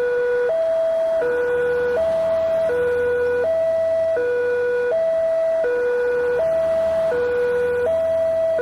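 Railway level-crossing barrier siren, the electronic warning that a train is approaching. It alternates steadily between a lower and a higher note, each held about three-quarters of a second, about six times over.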